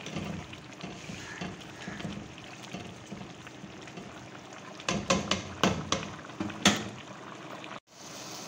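Pulao rice simmering in mutton stock in a pot, a steady bubbling as the last of the liquid is absorbed and bubbles rise through the rice. Several sharp knocks of a spoon against the pot come between about five and seven seconds in, and the sound breaks off for an instant near the end.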